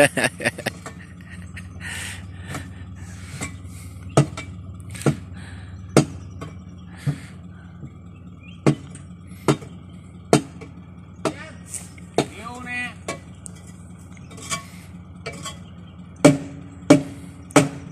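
Sharp metallic clinks and knocks, irregular and about one a second, from hand work on the engine of a Caterpillar 307C excavator that has stalled from running out of fuel and is being readied to restart. A low steady hum runs underneath, and the knocks grow louder near the end.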